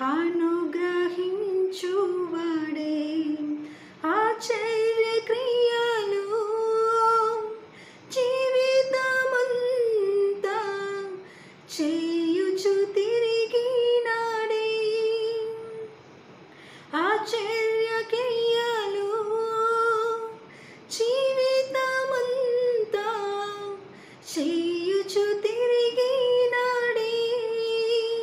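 A woman singing a Telugu Christian hymn without accompaniment, in long held, gliding phrases of three to four seconds each with short breaths between.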